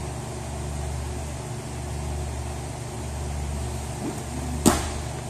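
Steady low hum, with one sharp slap of a body against a grappling mat near the end.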